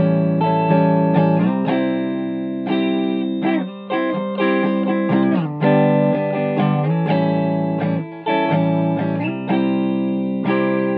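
Agile AS-1000 electric guitar played through an amplifier: chords strummed in a steady rhythm and left to ring, with a few short breaks between phrases.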